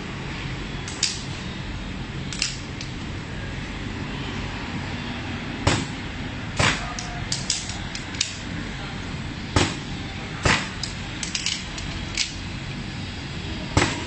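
Irregular sharp knocks and clicks of an aluminium picture-frame moulding being handled and set against the steel table and corner anvil of a frame-crimping machine, over a steady background noise.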